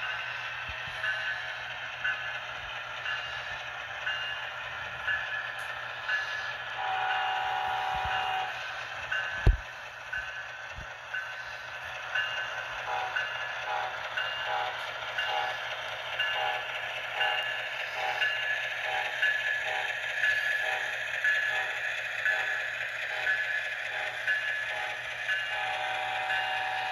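HO scale CSX diesel locomotive's onboard sound system: the diesel engine running steadily, with a multi-note horn chord blown about seven seconds in and again near the end, and a chime repeating about twice a second from about thirteen seconds on. A single sharp knock about nine and a half seconds in.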